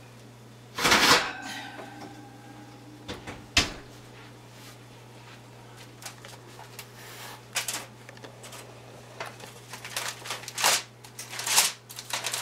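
Kitchen handling of a hot roasting pan and oven: a loud metal clank about a second in that rings briefly, a sharp knock a couple of seconds later, then a run of small clicks and rustles, over a steady low hum.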